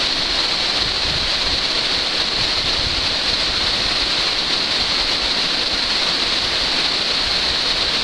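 Steady rushing of a waterfall, a constant hiss-like water noise with no change in level.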